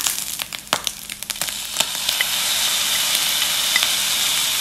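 Fried rice sizzling in a hot frying pan, with a wooden spatula clicking and scraping against the pan during the first second or so. About two seconds in, the sizzle turns louder and steady as kimchi goes into the pan.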